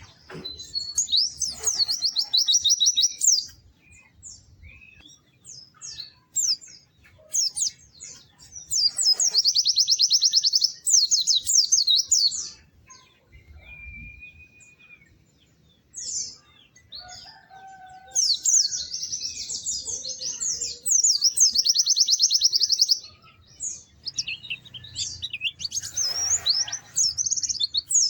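White-eye (pleci) singing: four bursts of rapid, high trilling twitter, each lasting a few seconds, separated by short pauses with scattered single chirps.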